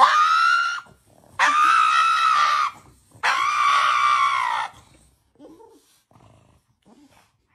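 Pug screaming during a nail trim: three long, high-pitched wails, the last two each more than a second long, with short breaks between them.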